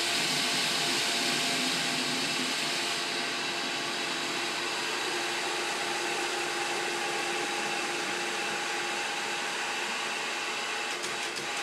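General Air Products RFP System residential fire protection pump, an electric motor driving a stainless centrifugal pump, running with a loud, steady hum. Near the end a rapid ticking sets in as the pump starts switching on and off quickly: short cycling, which can be caused by a blockage, a closed valve or too much air in the system.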